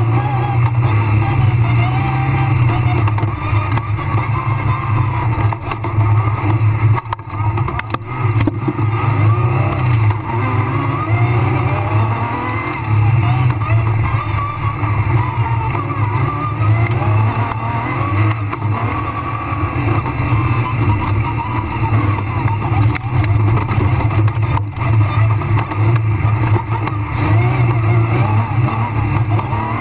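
Rally car engine heard from inside the cabin, running hard on a dirt stage, its pitch rising and falling through gear changes, with brief lifts about seven seconds in and again near 25 seconds.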